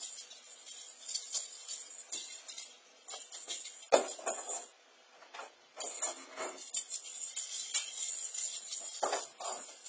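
A cat's jingle ball toy jingling and rattling in irregular bursts as the cat bats at it and pounces on it, with one sharper clack about four seconds in.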